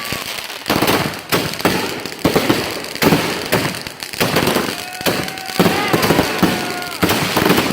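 Consumer fireworks going off in a rapid series of sharp bangs and crackles, with several whistling tones over them in the second half.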